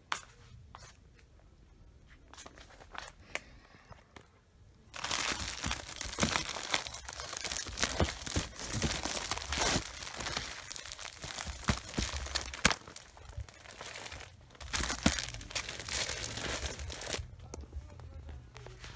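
Plastic wrappers on packs of Kanekalon braiding hair crinkling and rustling as they are handled, with many sharp crackles. It starts suddenly about five seconds in and dies down near the end.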